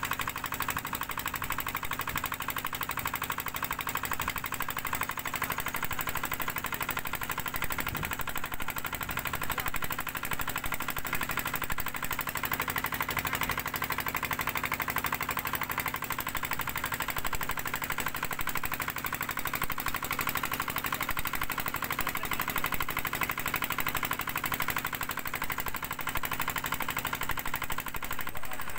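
Small fishing boat's engine running steadily under way, a rapid regular pulsing, cutting off near the end.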